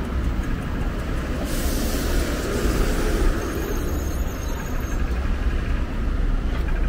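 City street traffic rumbling steadily at a busy junction, with a burst of hiss about a second and a half in that lasts nearly two seconds.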